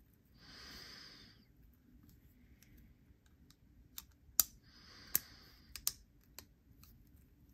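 Sharp clicks from a freshly reassembled Mallery Designs Phorus folding knife as its blade is worked open and shut. About six clicks fall in the second half, the loudest a little before the middle of them. Two soft breaths out are heard, one early and one among the clicks.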